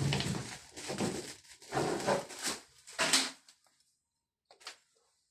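Handling noise of the white plastic caps being fitted into the transit-bolt holes at the back of a washing machine: irregular rubbing and knocking for about three seconds, then quiet with one small click about four and a half seconds in.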